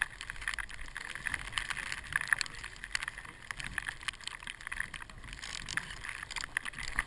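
Snowboard binding ratchet straps being cinched by gloved hands: irregular clicking mixed with the rustle of gloves and snow-crusted clothing, one sharper click a couple of seconds in.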